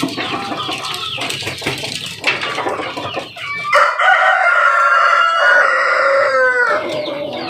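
KUB chickens clucking in their cages; about four seconds in, a rooster crows once, a long cock-a-doodle-doo of about three seconds that breaks up and falls at the end.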